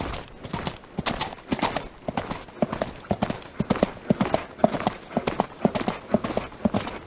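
Horse hooves clip-clopping on hard ground, a steady run of sharp hoof strikes several times a second.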